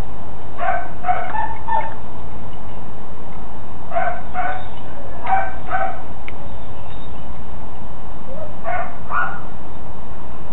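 Young Belgian Malinois barking in three short bouts of a few quick barks each, with a pause of a couple of seconds between bouts.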